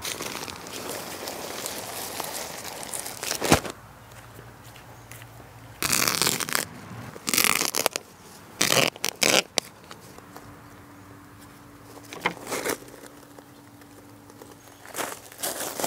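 Plastic bag of potting soil crinkling and soil being scooped and handled, in several short bursts, with one sharp knock a few seconds in.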